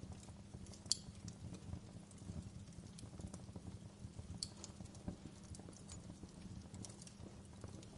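Wood fire crackling in a fireplace: a dense, irregular run of small snaps over a low rumble, with sharper pops about a second in and again about four and a half seconds in.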